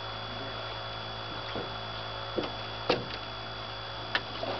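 Steady electrical hum with a handful of short knocks and thumps, the loudest about three seconds in, as a flathead catfish is handled and released over the side of a boat.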